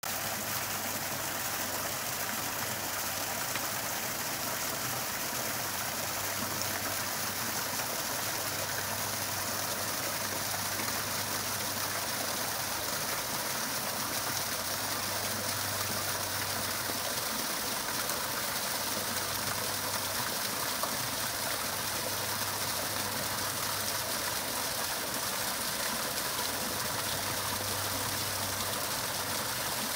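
Small waterfall spilling over rocks into a shallow pool: a steady, continuous hiss and splash of falling water. A faint low hum comes and goes underneath.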